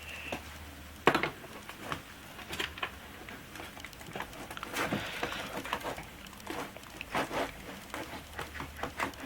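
Irregular clicks, taps and knocks as a computer monitor and its stand are handled, with a sharper knock about a second in and a brief rustle about halfway through.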